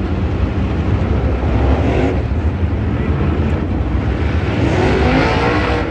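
Late model race car engines running on the track, with one car passing close near the end, its engine note rising and then falling away.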